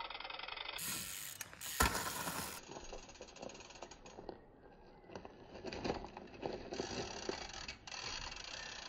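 Trials bike's freewheel hub clicking as the bike rolls, with knocks of the tyres striking and landing on wooden pallets; a sharp knock about two seconds in is the loudest.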